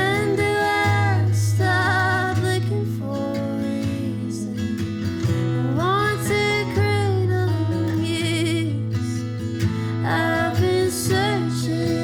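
Woman singing with acoustic guitar accompaniment, holding long notes with vibrato.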